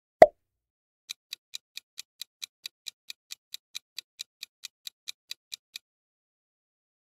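A single short pop just after the start, then a quick, even clock-ticking sound effect of about four to five ticks a second for nearly five seconds, the tick of a quiz countdown timer.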